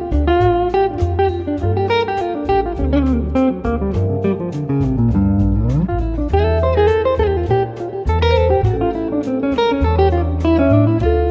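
Background music: electric guitar playing a bluesy melody with bass and a steady drum beat.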